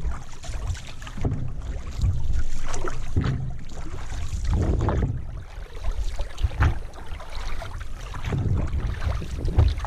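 Canoe paddling heard through a GoPro mounted on the hull: paddle strokes and water swishing over a heavy low rumble of hull vibration carried through the camera casing and mount. A few knocks, typical of the paddle bumping the gunwale, stand out.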